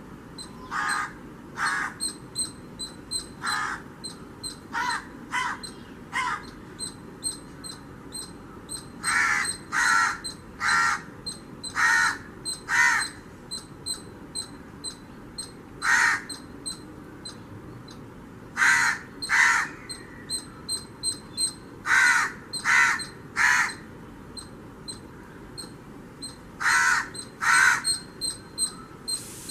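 Crow cawing over and over: short, harsh caws, often two or three in quick succession, with pauses of a second up to a few seconds between groups.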